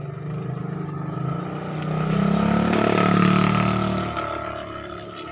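A motor vehicle's engine running close by, swelling to its loudest about three seconds in and then fading, as if passing.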